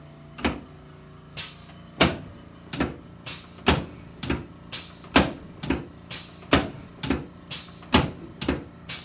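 A rapid series of sharp, short knocks, about two a second, unevenly spaced and varying in loudness, over a faint steady hum.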